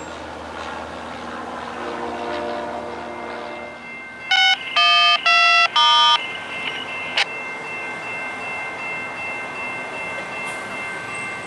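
Locomotive air horn sounding four quick chord blasts about four seconds in, the first the shortest, then a steady high ringing tone that holds on after it.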